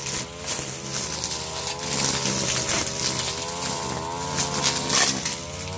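Mitsubishi TL33 two-stroke brush cutter running at working throttle, its serrated nylon trimmer line spinning through grass. The engine pitch wavers up and down as the line meets the grass.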